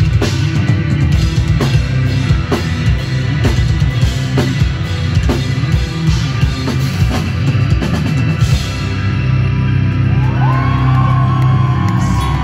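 Loud live rock band playing an instrumental passage: drum kit, distorted electric guitars and bass guitar. About nine seconds in the drums stop and the guitars and bass ring on with a held chord and a high sliding note, as the song ends.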